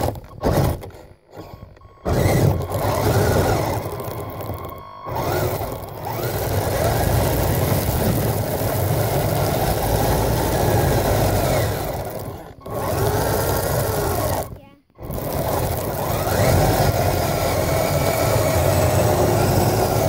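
Kyosho Blizzard SR radio-controlled electric snowcat's motor and tracks running over snow, heard close up from a camera mounted on the vehicle. The noise drops out sharply for a moment several times: about 5 seconds in, around 12 seconds and around 15 seconds.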